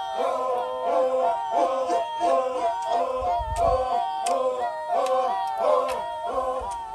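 Voices singing a repeating, rhythmic melody with long wavering notes and a few sharp clicks.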